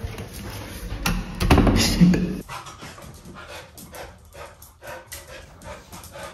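Pet dogs panting and moving about. Louder scuffling for the first two and a half seconds, then quieter, irregular short ticks and shuffling.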